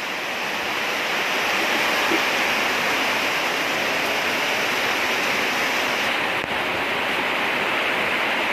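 Heavy rain pouring down steadily on corrugated sheet roofing: a dense, even hiss that builds slightly over the first couple of seconds and then holds.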